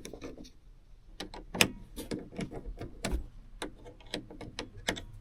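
NA Mazda MX-5 Miata hardtop catch lock being worked by hand: about a dozen sharp, irregular metal clicks and knocks as the latch is tried and will not close.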